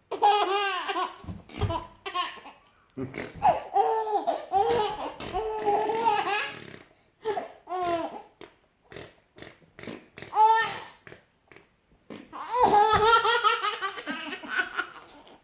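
A baby laughing in repeated bursts of giggles and belly laughs, set off by fart noises made for her; the laughter comes in runs with short pauses, quieter in the middle and picking up again near the end.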